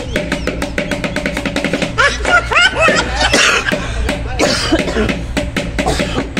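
Fast percussion music for a monkey dance: a drum and cymbals struck in a rapid, even beat of many strokes a second. A brief voice-like call rises and falls over it about two to three seconds in.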